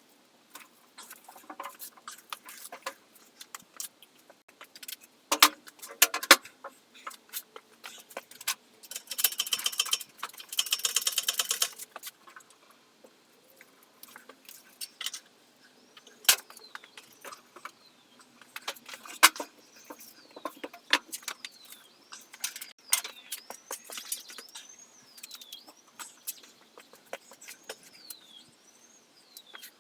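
Metal tools and parts clinking and knocking during hands-on motorcycle engine work, with two spells of fast, even clicking about nine and ten seconds in. In the last few seconds a high chirp that falls in pitch repeats about once a second.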